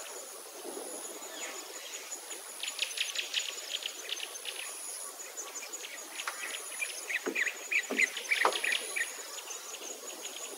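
Outdoor natural ambience: a steady, high insect-like trilling with scattered short bird chirps, which bunch up and grow louder about two thirds of the way through, over a light hiss.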